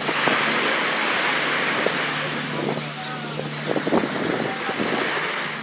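Sea waves breaking and washing onto a sandy beach, with a louder surge in the first couple of seconds, and wind buffeting the microphone.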